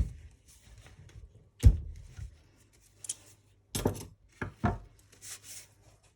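Metal tools knocking, clicking and scraping against a small nitro model engine while a stuck nut is worked loose. There is a sharp knock at the start, a louder one about a second and a half in, and a quick cluster of knocks around four seconds in, with rubbing and scraping between them.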